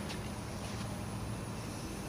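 Faint steady low hum under a quiet, even background hiss.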